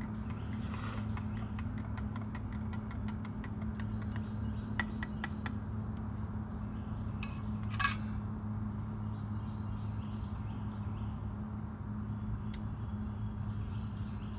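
A steady low hum with scattered light clicks and one louder metallic clink of camp cookware about eight seconds in.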